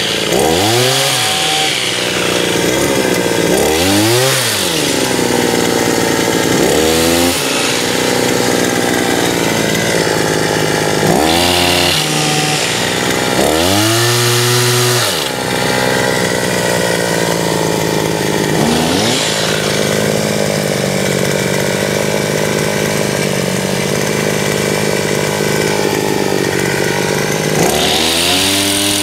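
Backpack olive harvesting shaker's small petrol engine running steadily and revving up and falling back about seven times as the vibrating pole shakes the olive branches.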